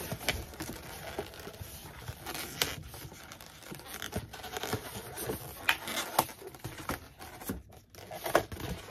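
Inflated latex modelling balloons handled and rubbed together as they are twisted and tied, with irregular sharp clicks and crinkling noises.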